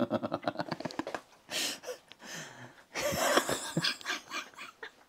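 Helpless laughter: a quick run of rhythmic laughing pulses at the start, then wheezing, gasping breaths as the laughing goes on.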